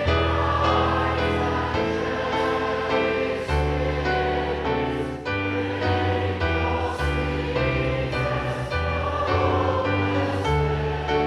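A choir singing a hymn over held chords, with a sustained bass line that moves to a new note every second or so.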